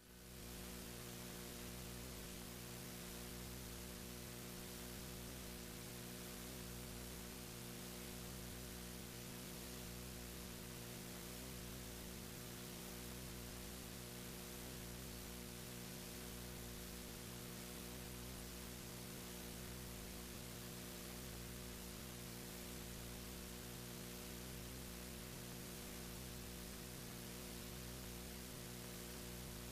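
Steady electrical hum with a constant hiss: a stack of unchanging low tones over even background noise, with nothing else happening.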